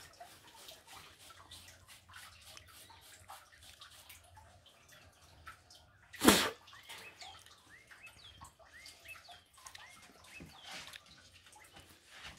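Water splashing and dripping onto a concrete floor as a wet dog is washed by hand, in a run of small drips and splashes, with one louder thud about six seconds in.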